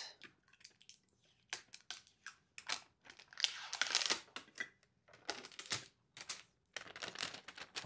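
Scotch tape being peeled off a glass water pitcher in short, irregular scratchy rips, with one longer peel about three and a half seconds in.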